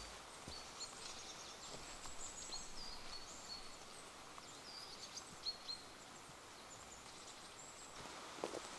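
Small songbirds giving faint, high, short chirps and little falling notes over a steady faint hiss of forest ambience, with a few soft ticks.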